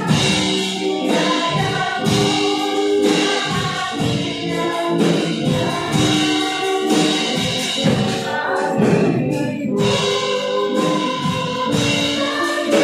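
Live worship song: women singing through microphones over a band with a drum kit keeping a steady beat.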